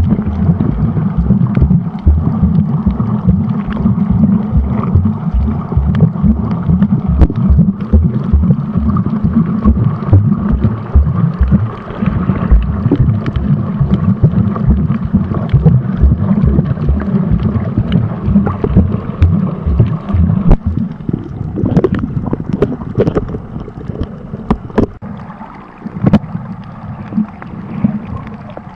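Muffled water noise on an underwater camera's microphone: a dense, low rumble and sloshing of water moving over the camera, with many small knocks and crackles, easing somewhat for a few seconds near the end.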